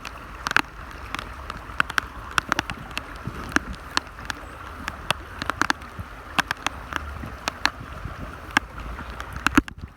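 Raindrops tapping sharply and irregularly close to the microphone over the steady rush of swollen, fast-running water, with a low rumble underneath.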